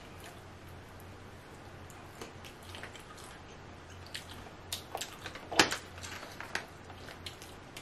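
Cooked king crab leg shell being cracked and pulled apart by hand, with small crackling snaps and wet squishing as the meat is picked out. A sharper crack comes about five and a half seconds in.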